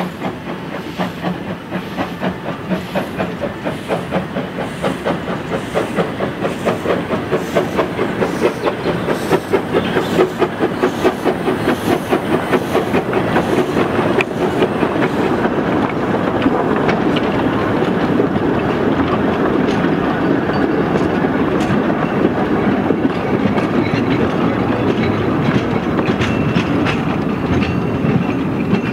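Steam locomotive pulling away, its exhaust beats quickening from about two a second until they blur into a continuous chuffing about halfway through, growing louder as it gathers speed.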